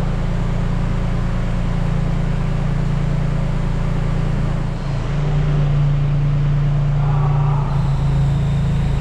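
A machine's engine or motor running with a steady low drone. It dips briefly about five seconds in, then runs on slightly louder.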